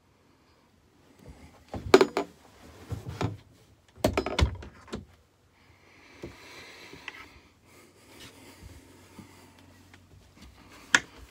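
A cluster of short knocks and thumps about two seconds in and again around four seconds, then faint rustling and a single sharp click near the end. These are handling and movement noises as someone walks through a small boat cabin.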